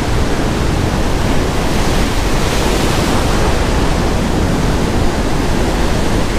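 Ocean surf rushing and breaking, a steady loud wash of churning whitewater.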